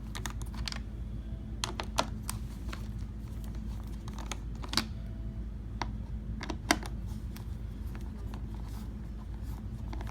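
Small irregular clicks and ticks of a screwdriver working small screws out of a plastic headlight assembly, with three sharper clicks about two, five and seven seconds in. A steady low hum runs underneath.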